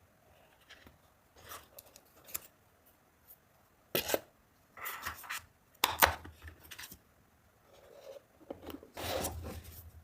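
Handling noises from unboxing a smartphone: the box and its packaging rubbed, slid and scraped in irregular bursts, with a sharp click about four seconds in and another near six.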